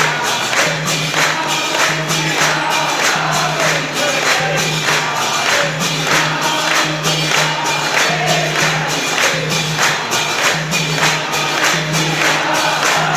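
A temple congregation singing a Hindu aarti in chorus, with steady rhythmic hand-clapping and jingling percussion at about two to three beats a second.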